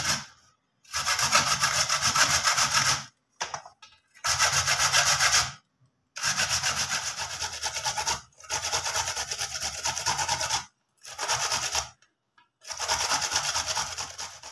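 Carrots being grated on a metal box grater: fast rasping strokes in several runs of one to two and a half seconds, each stopping abruptly.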